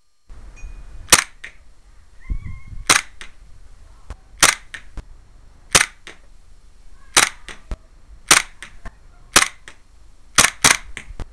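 Tokyo Marui Glock G26 Advance gas blowback airsoft pistol firing about nine single shots, roughly one to one and a half seconds apart, with the last two in quick succession. Each sharp crack is followed a moment later by a fainter click.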